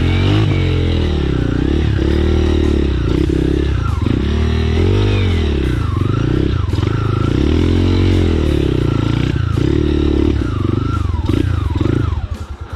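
Trail motorcycle engine revving up and down as it is ridden, its pitch rising and falling every second or two. The engine sound drops away suddenly near the end.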